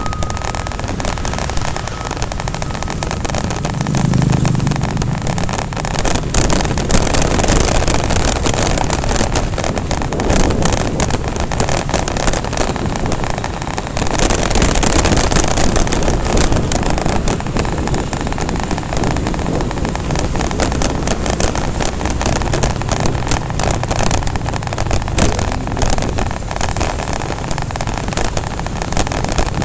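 Honda Revo single-cylinder four-stroke motorcycle riding at road speed: steady engine and road noise under heavy wind rushing over the microphone.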